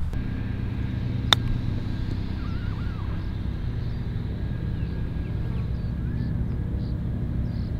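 One crisp click of a 52-degree wedge striking a golf ball on a short bump-and-run chip, about a second in. Under it runs a steady low rumble.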